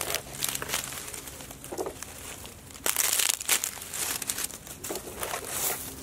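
Dry leaf litter crackling and rustling in irregular bursts as chanterelle mushrooms are picked from it, loudest about three seconds in.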